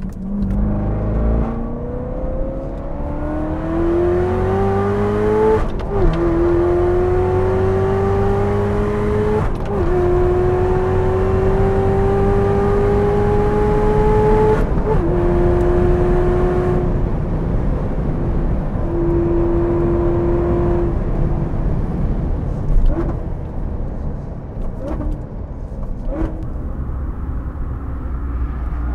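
Supercharged 6.2-litre V8 of a 2019 Chevrolet Corvette ZR1 accelerating hard: the engine note climbs in pitch through the gears with three quick upshifts, at about 6, 9½ and 15 seconds in, then holds steady and eases off.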